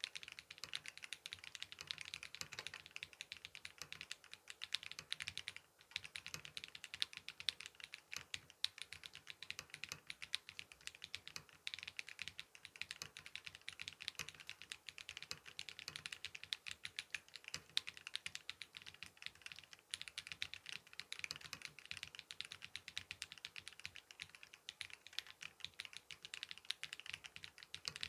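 Continuous fast typing on a mechanical keyboard: an EPOCH 80 TKL with a carbon fiber plate, Holy Panda tactile switches lubed with Super Lube spray, and Leopold keycaps. The keystrokes pause briefly about six seconds in.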